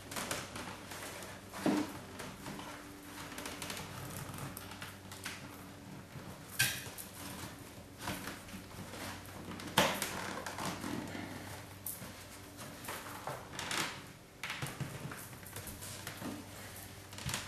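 Fiber rush (twisted paper cord) rustling and scraping as strands are drawn through the seat weave and pulled tight by hand, with a few sharper clicks along the way.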